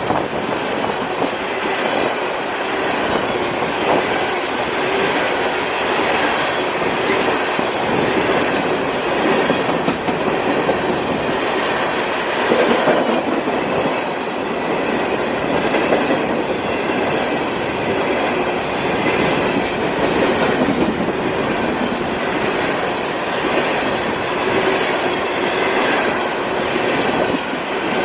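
CSX coal train rolling steadily past, its hopper cars' wheels clattering over the rail joints with a faint metallic squeal.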